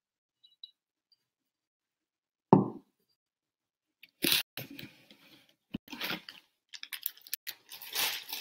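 A single knock about two and a half seconds in, as an object is set down on a table, then, from about four seconds in, irregular rustling and crinkling of packaging being handled.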